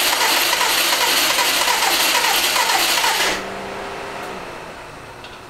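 The starter motor cranks the Subaru WRX STI's flat-four engine over and over without it firing. The cranking stops about three seconds in, and a fainter hum lingers briefly. The engine isn't catching, and the crew suspect fuel isn't reaching it.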